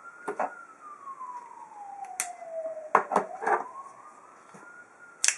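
Sharp clicks and knocks from folding pocket knives being handled and their blades opened: a Leatherman folding knife and a Wenger Scout, with the loudest click near the end. Behind them a siren wails faintly, its pitch falling slowly and then rising again.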